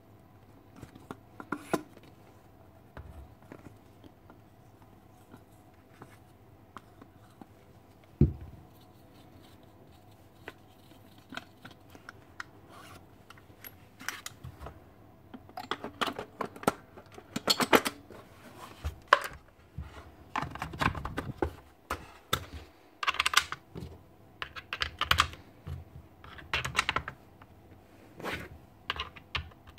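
Parts of a Paslode IM350/90 gas nail gun being handled and fitted by hand: scattered clicks, knocks and scrapes of plastic and metal, sparse at first and busier through the second half.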